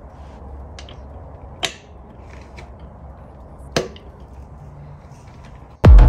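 Two sharp clicks, about a second and a half and nearly four seconds in, with a few fainter ticks over a low steady hum: a hand tool knocking against the harmonic damper as it is seated in the damper's bore.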